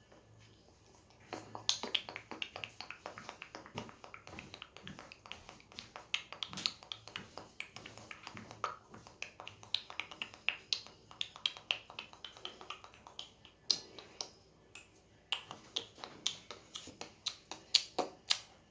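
A dense run of irregular sharp clicks and crackles, starting about a second in and stopping shortly before the end.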